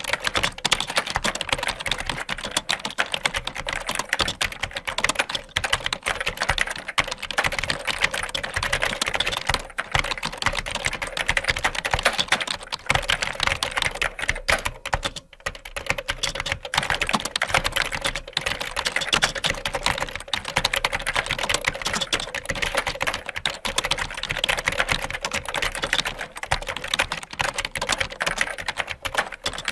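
Fast typing on a computer keyboard: a dense, continuous stream of key clicks, with a brief pause about halfway through.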